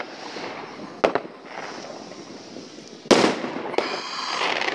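Fireworks going off: a sharp bang about a second in, then a louder bang just after three seconds and a second one soon after, followed by a steady rush of noise as the burst spreads.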